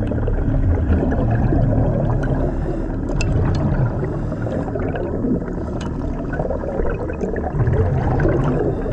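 Steady underwater gurgling and rumbling of a diver's breathing and exhaust bubbles, with a few faint clicks.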